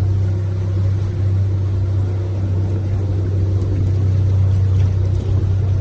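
Canal tour boat's engine running steadily under way, a constant low drone with water and hull noise over it.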